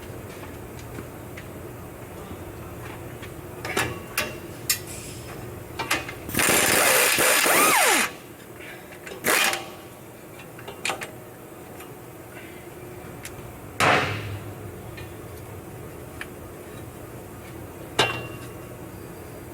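Metal tool clicks and knocks while nuts are worked off an exhaust hanger bracket, with a power ratchet running for about two seconds a little before the middle. A few sharper clinks follow later.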